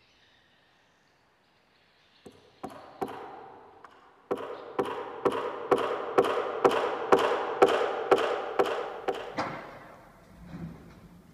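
A run of evenly spaced knocks, about two a second, with a ringing tone between them, growing louder and then dying away before stopping about three-quarters of the way through.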